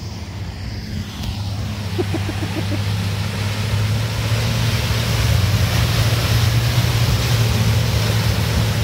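Nissan Patrol SUV's engine running as it drives through a shallow river, with water splashing and surging around its wheels and body; the sound grows louder over the first few seconds as it comes close.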